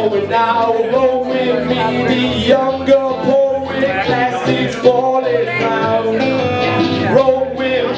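Live acoustic band playing: strummed acoustic guitars and electric bass under a wavering lead melody line that is held and slides between notes.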